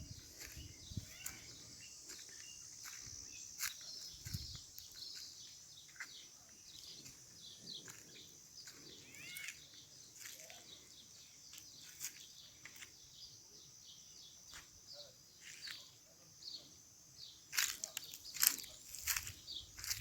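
Small birds chirping and calling in scattered short notes over a steady high-pitched hiss. The calls grow louder and busier near the end.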